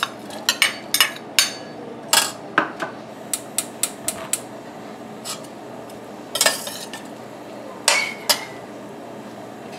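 Metal spoon clinking and scraping against a stainless steel saucepan as sliced onion is tipped in: a quick run of sharp clinks over the first four seconds, a lull, then a few more clinks near the end as the onion is stirred.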